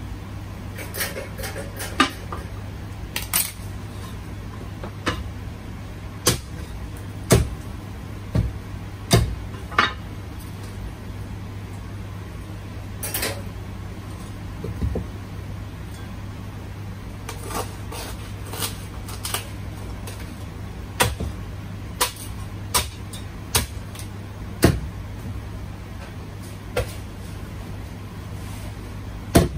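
Kitchen clatter: irregular sharp knocks and clinks of utensils and dishes, a second or two apart, over a steady low hum.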